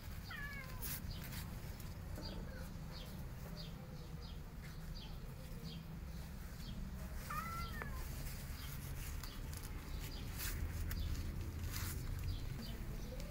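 A young kitten mewing twice: short, high calls, one right at the start and one about seven seconds later.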